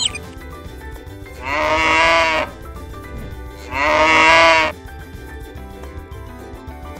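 Two bleats, each about a second long and slightly falling in pitch, over steady background music.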